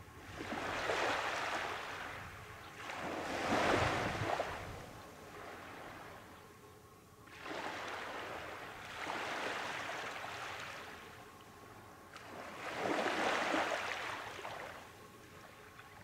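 Small waves breaking on a sandy beach from calm sea, about five gentle surges of surf in turn, each swelling and then washing away.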